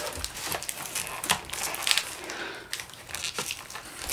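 Clear plastic packaging tape and cardboard crinkling and crackling as a toy blaster is pulled free of its box tray, with many irregular small snaps and rustles.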